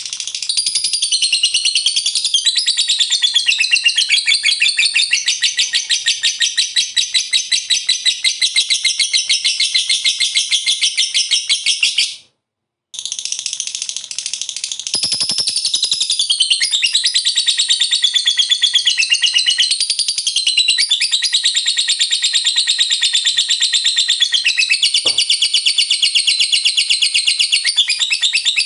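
Lovebird singing its long 'ngekek' song: a continuous, rapid, high-pitched chattering trill with wavering pitch. It breaks off for about half a second near the middle, then runs on.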